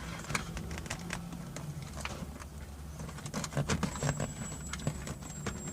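Irregular small clicks and knocks of wiring connectors and plastic parts being handled and plugged back together, over a low steady hum. The clicks are busiest after about three seconds.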